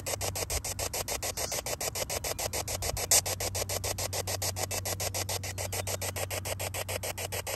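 Spirit box, a radio scanner, sweeping through stations: hiss and static chopped into rapid, even pulses over a steady low hum, with one louder burst about three seconds in.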